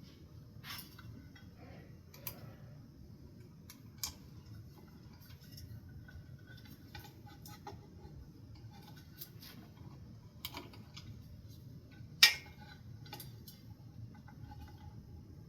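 Scattered clicks, clinks and light knocks of small metal light-fixture parts and screws being handled, with one sharp, loud clack about twelve seconds in.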